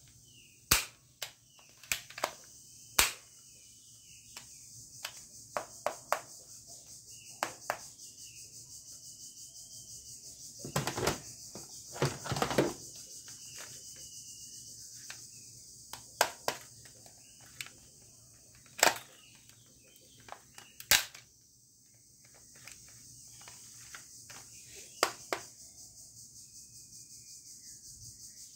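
Plastic toy guns being handled: irregular sharp clicks and knocks of hard plastic parts, with a stretch of plastic rubbing and rattling a little under halfway. A steady high chirring hiss runs underneath.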